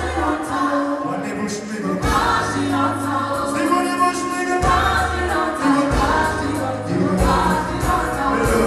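Live concert music: several voices singing a melody over a band with a deep bass line that moves in held notes.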